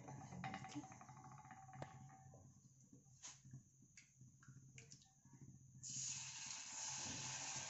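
A few faint clicks, then about six seconds in a steady sizzle starts as thin neer dosa rice batter is poured onto the hot ghee-greased tawa.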